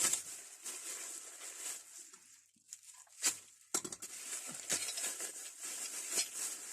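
Packaging rustling and crinkling as a parcel box of old spanners is opened and unwrapped, with a couple of sharp clicks a little after three seconds in.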